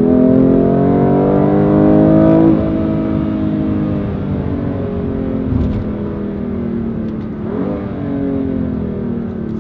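BMW M2 Competition's 3.0-litre twin-turbo straight-six revving up under acceleration for about two and a half seconds. Its pitch and level then drop and it runs on at lower revs. Near the end the revs jump briefly and fall away again.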